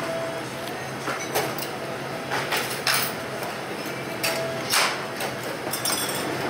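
A metal spoon clinking and knocking against a ceramic soup bowl, several short, sharp knocks spread irregularly over a steady background noise.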